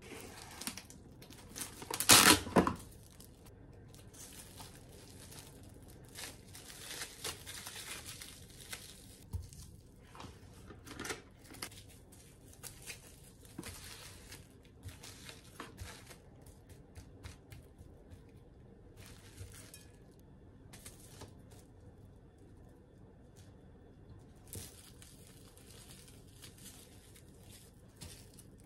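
Plastic cling wrap being torn off the roll with one loud rip about two seconds in, then crinkling in short bursts as it is wrapped around soft balls of bean-paste mochi.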